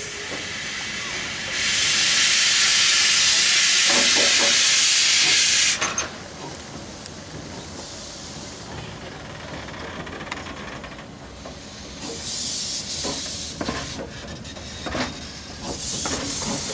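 Steam locomotive venting steam: a loud, steady hiss for about four seconds, then lower hissing with a few metallic clanks, and a shorter burst of hiss later on.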